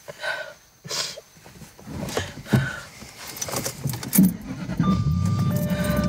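A few short knocks and rustles of handling inside a car, then a little after four seconds the car's engine starts and settles into a steady low idle. Held tones of a music score sound over the engine near the end.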